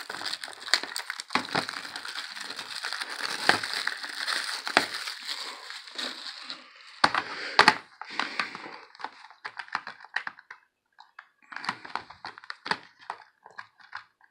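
Plastic shrink-wrap crinkling as it is torn and peeled off a Blu-ray case, then a few sharp plastic snaps about seven seconds in and scattered clicks as the hard plastic case is handled and opened.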